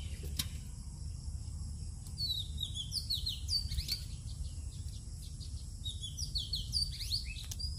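Small birds chirping, with quick high calls in two clusters, about two seconds in and again near the end, over a low steady rumble.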